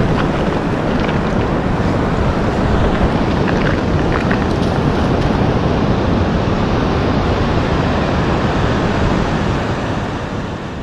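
Wind buffeting the microphone over the wash of surf on the beach, a loud steady rumble that fades out near the end.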